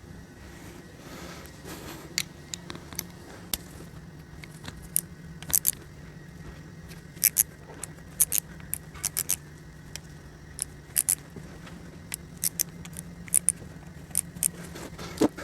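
Irregular sharp metallic clicks and clinks of a hand tool and loose screws while T30 Torx screws are taken out of a CVT transmission oil pan. Some clinks come in quick pairs, over a steady low hum.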